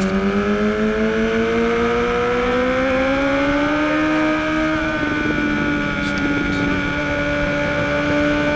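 BMW HP4's inline-four engine pulling hard in second gear, its pitch climbing steadily for about four seconds, dipping briefly, then holding high and creeping up again.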